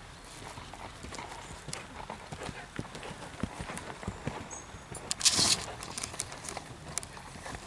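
Horse's hoofbeats thudding softly on a sand arena surface, at an uneven rhythm. About five seconds in there is a brief loud rush of noise.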